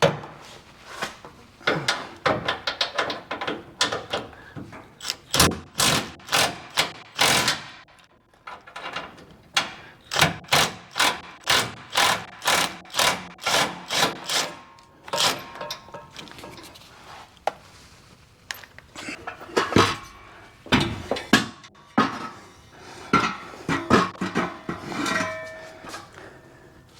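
Repeated knocks and clanks of tools on the metal exhaust as the stock F-150 exhaust is worked off its hangers, partly in steady runs of about two strikes a second, with some brief metallic ringing near the end.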